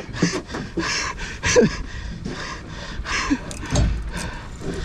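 A man panting and grunting with effort as he strains on a heavy rod against a big hooked bluefin tuna, over a steady hiss of wind and sea.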